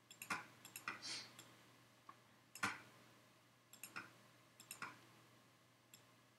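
Computer mouse and keyboard clicks: a scattered series of faint, short clicks, many in quick pairs, the loudest about two and a half seconds in.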